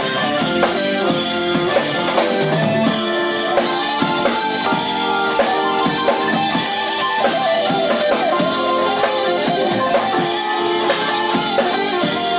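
A fusion quartet playing live: a drum kit with regular hits, electric bass, keyboards and electric guitar. From about four seconds in, a lead line with pitch bends and slides rides on top.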